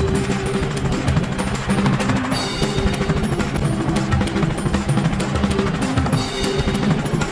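Background music with a fast, heavy drum beat over a steady bass line.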